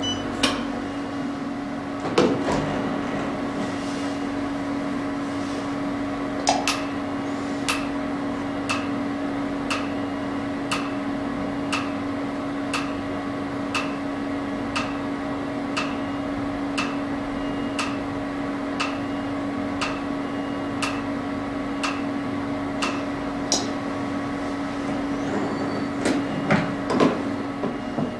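Q-switched Nd:YAG laser firing single pulses about once a second at a 1 Hz repetition rate. Each pulse is a sharp snap with a short high beep, over the machine's steady cooling-system hum. A few knocks near the end.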